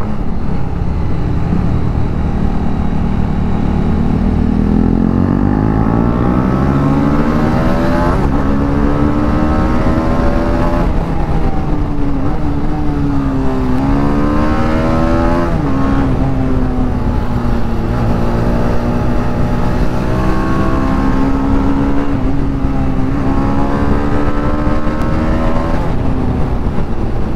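Motorcycle engine heard from the rider's helmet, revs climbing and dropping again and again as the bike accelerates and slows for corners, with steady wind rumble on the microphone.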